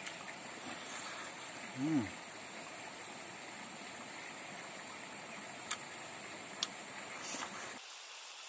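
A man eating rice and omelette by hand and chewing, with a few sharp mouth clicks and a short 'mm'-like voiced sound about two seconds in, over a steady rushing outdoor background.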